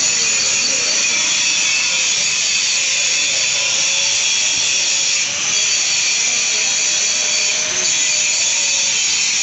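A power tool running steadily with a high hissing whir, dipping briefly twice, about halfway through and near the end.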